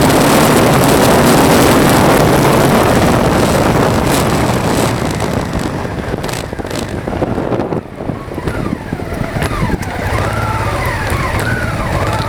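A vehicle driving on a gravel track, with loud tyre and wind noise that eases after about four seconds as it slows. Near the end the engine drops to a low, steady idle hum.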